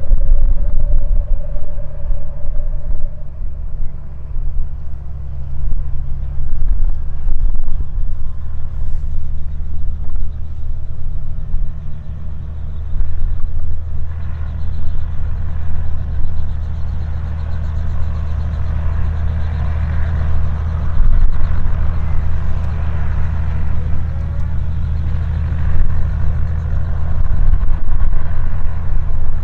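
Robinson R44 Raven II helicopter running on the grass with its rotors turning: a steady low throb of the main rotor and its six-cylinder Lycoming engine.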